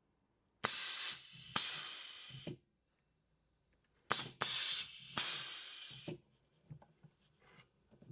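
A 5/2 pneumatic solenoid valve switches a pneumatic cylinder back and forth twice. Each switch lets out a sudden blast of compressed-air hiss from the exhaust that tails off after a second or so, in two pairs of blasts about three and a half seconds apart.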